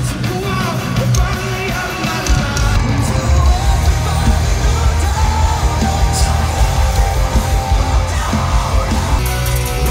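A metal band playing live, heard from within the crowd: loud distorted electric guitars and drums under shouted and sung vocals.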